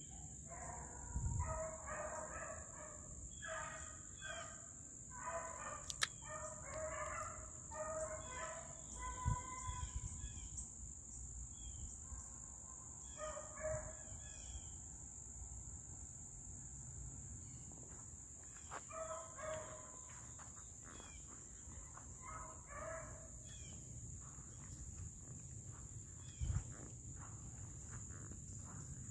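Pack of beagles baying faintly while running a rabbit: bursts of many overlapping bawls that come and go several times, with gaps between.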